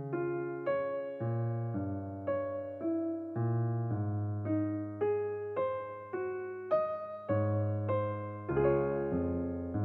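Background music: a solo electric piano playing a gentle melody, one note about every half second, each struck and fading, over a lower bass line.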